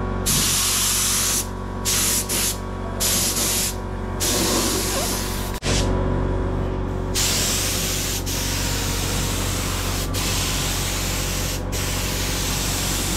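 Gravity-feed spray gun hissing as it sprays 2K direct-gloss paint onto a car's rear quarter panel. It starts with several short trigger pulls, then runs a long, nearly continuous pass broken by a few brief pauses. A steady low hum from the air compressor runs underneath.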